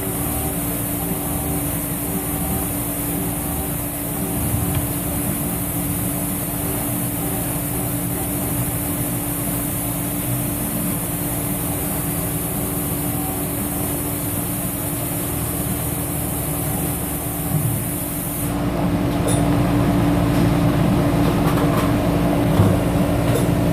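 Mori Seiki NH5000 horizontal machining center milling P110 steel with a half-inch five-flute carbide end mill on a waveform toolpath: a steady machining noise with a held tone and a high hiss. About three-quarters of the way through, the hiss cuts off and the cutting sound turns louder and rougher.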